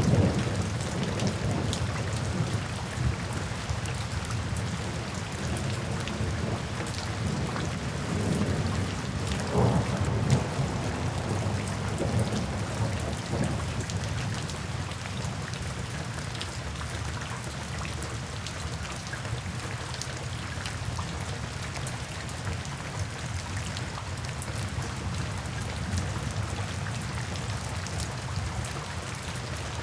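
Steady rain falling, with low rolls of thunder: one dying away at the start and another swelling about ten seconds in, then rain alone.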